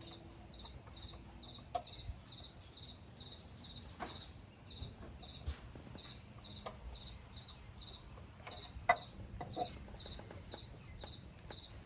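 A cricket chirping steadily, about two to three short high chirps a second, with scattered small metallic clicks of a wrench being handled, the loudest about nine seconds in.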